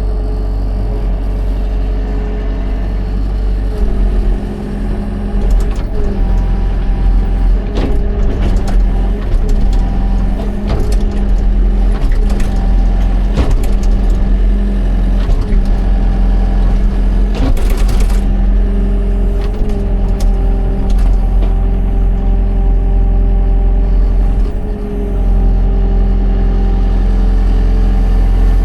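Excavator's diesel engine running steadily, with repeated short knocks and clanks through the middle and brief dips in the engine note twice.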